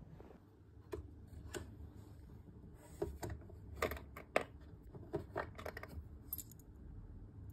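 Small metal rings clicking and clinking against each other and the wooden compartments as fingers pick through a jewellery box drawer: a dozen or so light, scattered clicks, bunched most closely around the middle.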